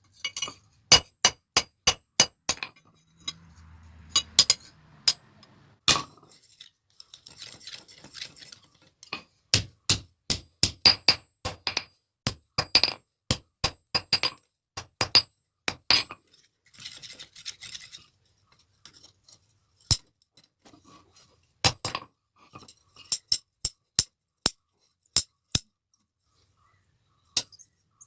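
Hammer striking metal in blacksmith's work on a pair of tongs: a long, irregular run of sharp metallic clinks with short pauses, and a few brief scraping noises between the blows.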